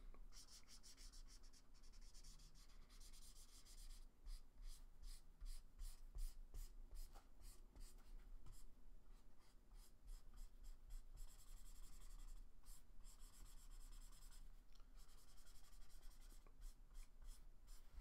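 Faint squeak and hiss of a ChartPak felt-tip marker rubbing over sketchbook paper as a large area is shaded. Long steady strokes turn into runs of quick back-and-forth strokes, several a second, from about four seconds in and again near the end.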